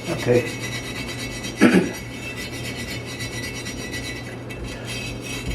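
Rapid back-and-forth scrubbing strokes on a cast iron kettle, working off paint and rust loosened by electrolysis. There is one brief louder knock about a second and a half in.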